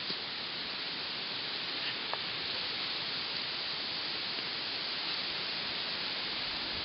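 Two small dogs digging in loose dirt with their front paws: a steady scratchy hiss of soil being scraped and flung, with a few faint clicks.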